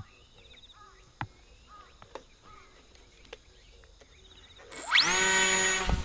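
Electric motor and propeller of a small sub-100 g RC model plane spinning up near the end: a fast rising whine that then holds at a steady pitch for about a second before dropping away. Before it, faint bird or insect chirps and a few light clicks.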